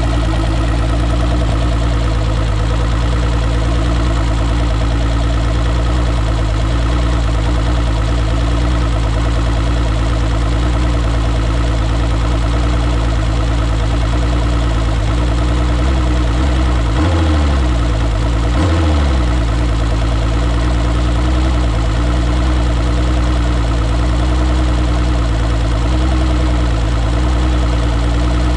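2006 Mercury Optimax 225's two-stroke V6 outboard engine idling steadily, running after its vacuum fuel lift pump was rebuilt. Its speed wavers briefly twice about two-thirds of the way through.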